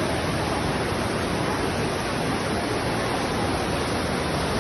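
Floodwater rushing past in a strong current, a steady, even roar of water with no break.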